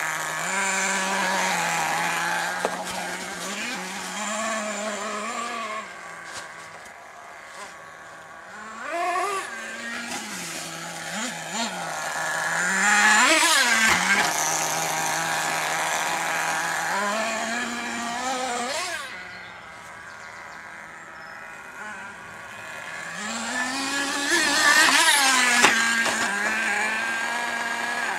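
HPI Firestorm nitro RC truck's small glow engine idling and revving up several times in quick bursts, its pitch rising and falling back each time; the loudest revs come about halfway through and near the end.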